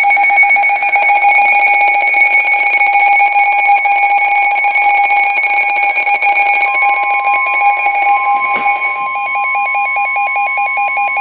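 Loud, steady electronic alert tone of an Emergency Alert System weather-radio alarm, with a fast pulsing; a second steady tone joins about two-thirds of the way in. It is the attention signal that announces a severe thunderstorm warning.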